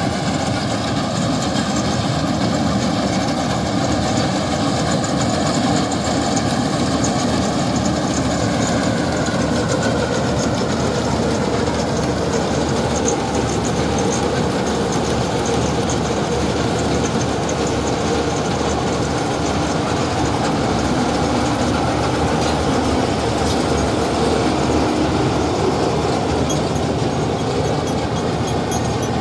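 Combine harvester running steadily while cutting paddy: a loud, continuous mechanical drone, with a faint whine that drops a little in pitch about eight to ten seconds in.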